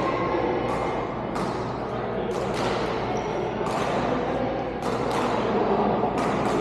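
Badminton rackets striking shuttlecocks in a large echoing sports hall: sharp hits about once a second, from several courts, over a low murmur of players' voices.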